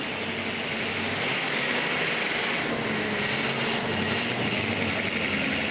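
School bus engine idling steadily, a low hum under a constant high-pitched hiss.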